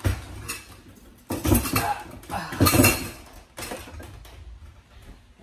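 Metal kitchen utensils clanking and rattling as a whisk is fished out from among them, with two louder bursts of clatter about one and a half and two and a half seconds in.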